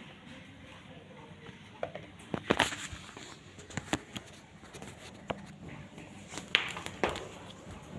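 Handling noises: scattered sharp clicks and taps with light rustling, the loudest about two and a half seconds in and again near six and a half seconds.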